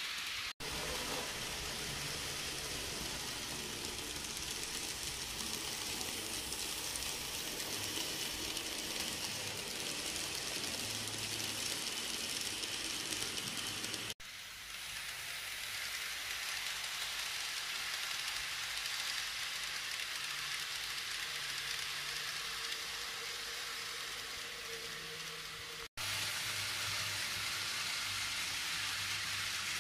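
N gauge model freight train running on track: a steady hissing rattle of small wheels rolling over the rails, with a faint low hum underneath. The sound cuts out abruptly three times at edits.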